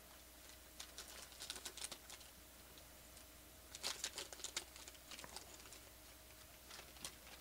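Foil wrapper of a trading-card pack crinkling and tearing as it is opened by hand, in faint bursts of crackling about a second in and again about four seconds in, with a shorter crackle near the end.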